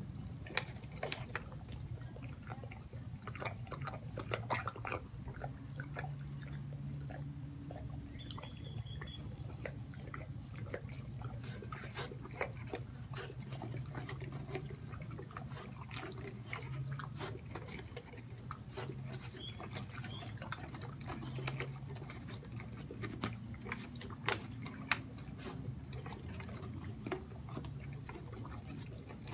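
An American Bulldog licking and chewing at the neck of a plastic water bottle to drink from it: irregular wet smacks and small clicks of teeth and tongue on the plastic, over a steady low hum.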